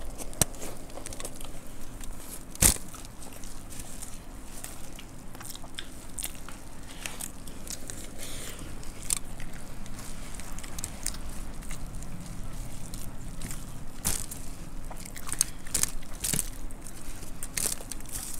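Several people chewing and crunching mouthfuls of dry puffed rice (murmura) with sev, and hands scooping through the puffed rice on the plate: a steady run of small crackles and crunches, with one sharper click about two and a half seconds in.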